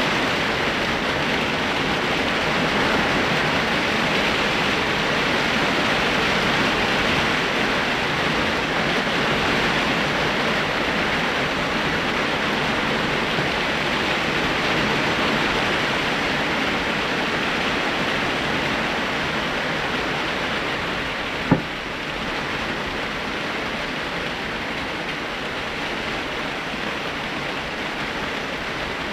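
Heavy rain pouring down steadily, a constant hiss of a downpour, with a single sharp knock about three-quarters of the way through.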